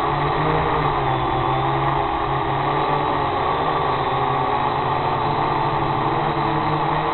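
Small multirotor drone's electric motors and propellers running steadily, heard from the camera on board: a buzzing whine whose pitch wavers slightly as the motors adjust while it hovers.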